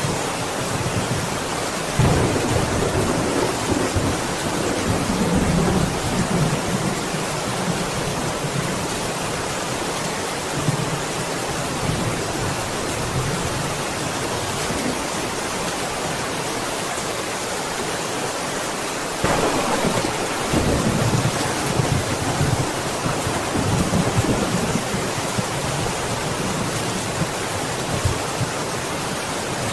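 Steady rain falling, with rolls of thunder: one low rumble begins about two seconds in and fades over several seconds, and another begins sharply about two-thirds of the way through and rolls on for several seconds.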